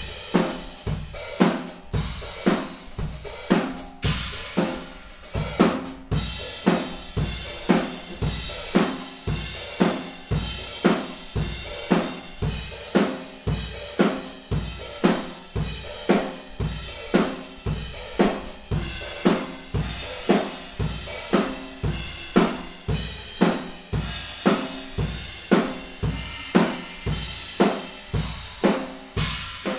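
Acoustic drum kit played in a steady groove: kick drum, snare and hi-hat with Owl Dark series cymbals ringing between strokes, strong hits about twice a second.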